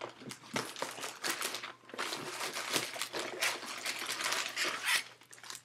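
Crinkling and rustling of plastic packaging handled close to the microphone, with light clicks and knocks, busiest in the middle stretch.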